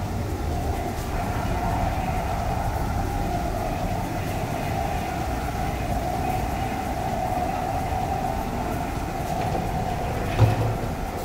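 Steady low rumble and hum of a moored ferry's onboard machinery and ventilation, heard inside the ship's bathhouse, with a single dull thump near the end.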